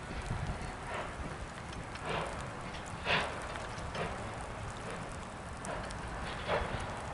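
Rio Grande K-36 2-8-2 narrow-gauge steam locomotive working slowly, its exhaust chuffing about once a second over a steady hiss.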